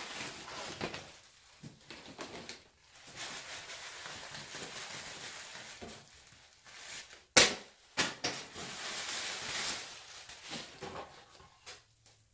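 Plastic packaging rustling and crinkling as a synthetic wig is pulled out of its bag and handled, in two long stretches, with two sharp knocks about seven and eight seconds in that are the loudest sounds.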